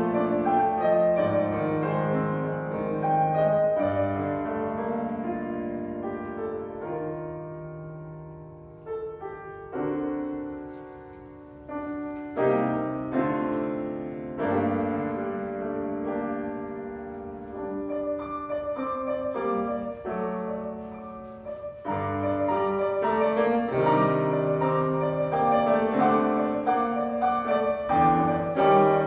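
Piano playing a slow piece of sustained notes and chords, growing quieter in the middle and swelling fuller again near the end.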